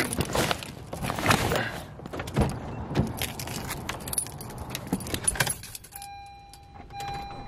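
Keys jangling and clattering, with knocks from handling things at the car. About six seconds in this dies down and a repeating electronic beep begins, as the Honda Civic's dashboard lights up with the ignition on.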